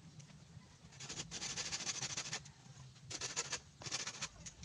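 Knife scraping and shaving green bamboo in quick, rasping strokes, in three runs: a longer one starting about a second in and two short ones near the end.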